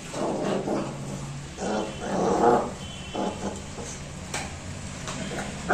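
Puppies growling at each other over a shared food bowl while eating, in two main bouts with the second, about two seconds in, the loudest; the growling is food guarding.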